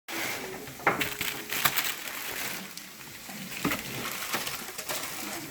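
Crackling and crunching of packaging being handled and pulled open, with scattered sharp clicks and knocks.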